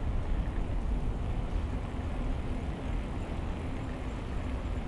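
Steady low rumble of wind on the microphone and tyre noise from a bicycle rolling along a paved road.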